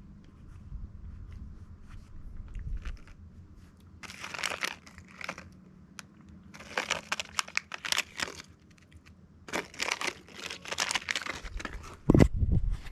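Irregular bursts of crinkling and rustling, three stretches of it, followed near the end by a heavy thump.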